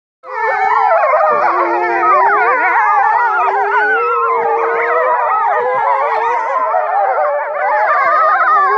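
A pack of grey wolves howling together in chorus, many voices gliding up and down over one another, with one lower howl held steady beneath the rest.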